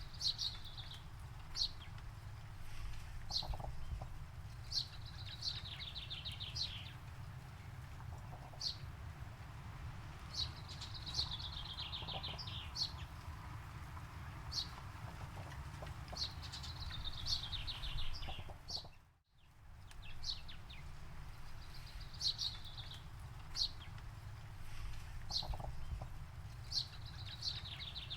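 Wild birds singing: short high notes and repeated descending trilled phrases, each lasting a second or two, over a steady low rumble of outdoor ambience. The sound drops out briefly about two-thirds of the way through.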